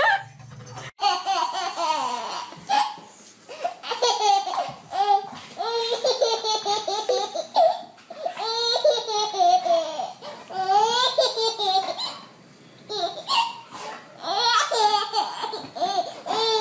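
A baby laughing hard in repeated high-pitched fits, with short pauses for breath between them.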